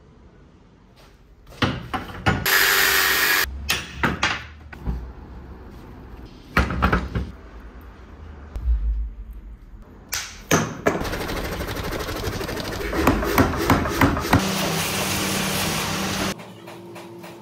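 Metalworking sounds in short cuts. Scattered hammer and tool knocks on hot steel come first, then a steady grinding of steel on a grinding wheel that stops shortly before the end.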